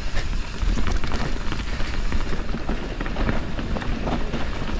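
Mountain bike riding fast down a forest trail: tyres rolling over dirt and roots, with frequent rattles and knocks from the bike over the bumps and a steady low rumble of wind on the camera microphone.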